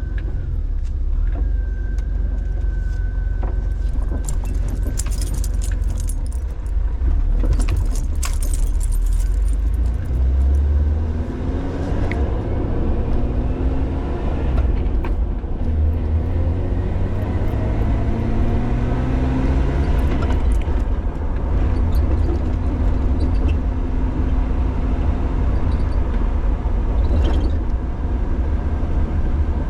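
2006 Jeep Wrangler driving, with a steady low rumble of engine and road. From a few seconds in there is a jangling rattle. Later the engine note climbs and falls back several times as it accelerates.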